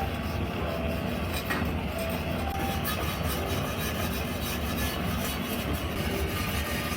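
Rhythmic scraping or rubbing strokes, about three a second, over a steady low hum, as of abrasive work on old bicycle parts.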